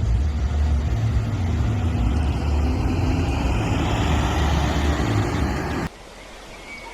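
A steady low motor rumble with a hiss over it, cutting off abruptly about six seconds in.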